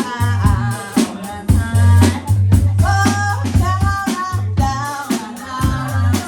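Live band music: a drum kit keeping a steady beat under a heavy, deep bass line, with a voice singing over it.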